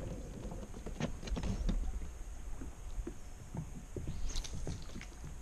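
Light irregular knocks and clicks over a low rumble, from a spinning rod and reel being handled in a kayak during a cast, with a brief rising hiss about four seconds in.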